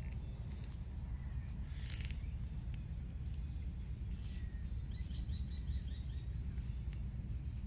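Short bird calls over a steady low rumble: a harsh call about two seconds in, another a little after four seconds, then a quick run of about seven chirps around five seconds.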